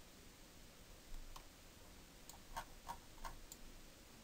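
Faint scattered clicks of a computer keyboard and mouse, about half a dozen, most of them bunched in the second half.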